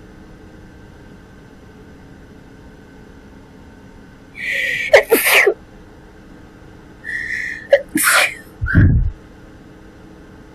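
A young woman sneezing twice, about three seconds apart, in a fit brought on by her cat allergy. Each sneeze starts with a sharp, hissing in-breath, and right after the second comes a short sound that drops in pitch.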